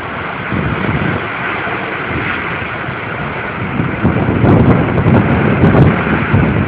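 Hurricane Sandy's strong wind blowing through trees and buffeting the microphone in a steady rushing noise, with heavier gusts about four seconds in.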